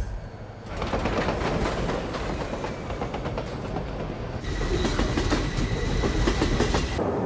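Subway train running, heard from inside the car: wheels clattering and the car body rattling with many quick clicks. About halfway through, a thin steady high whine rises above the clatter.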